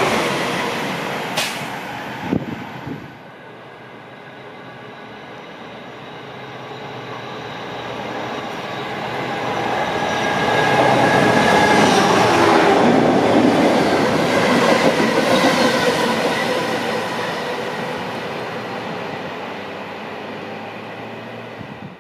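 A London Midland electric multiple unit passing at speed, its noise dying away over the first few seconds with a couple of sharp clunks. Then a DB Schenker freight train approaches and passes close by, loudest about halfway through as the locomotive goes by, with a steady whine over the rolling noise, the wagons rumbling past and slowly fading.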